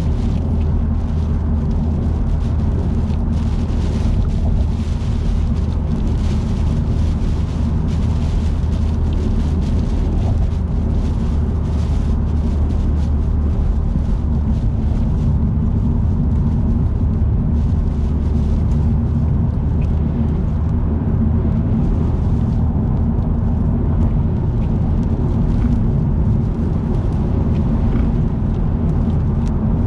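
A car driving steadily at expressway speed, with a constant deep road and engine hum under a flickering hiss of tyres and wind.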